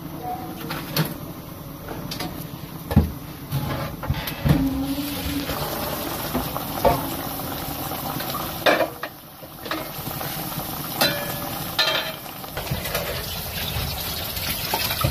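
A pot of meat in stock bubbling on the stove, with a handful of sharp clinks and knocks from pots, lids and utensils.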